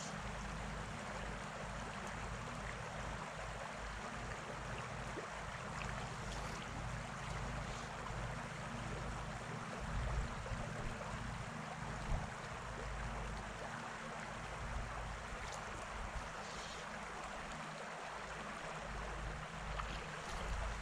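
Small river running: a steady rush of flowing water with a low rumble underneath, and two brief bumps about ten and twelve seconds in.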